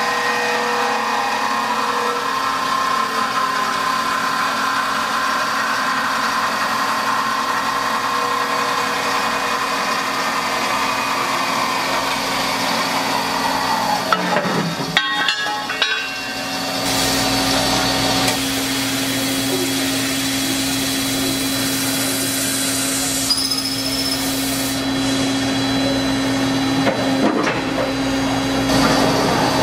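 CNC band saw cutting through a rectangular steel tube, coolant flowing onto the blade: a steady machine hum with a whine above it. About halfway there is a brief clatter of knocks, after which a steadier, lower hum takes over.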